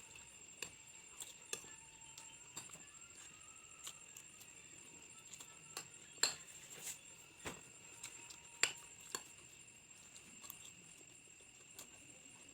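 A spoon clinking against a plate now and then while someone eats fried rice, a dozen or so irregular sharp clinks, the loudest two about six and eight and a half seconds in. Under them runs a steady high-pitched background tone.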